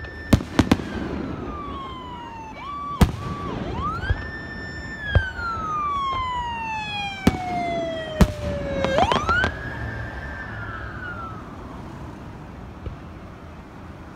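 Aerial firework shells bursting in several sharp bangs, while a siren wails: its pitch rises, holds, slides slowly down over several seconds, then rises again about nine seconds in.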